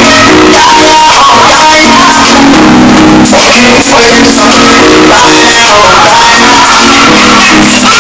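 Loud band or playback music with guitar, played live over a heavily clipped recording.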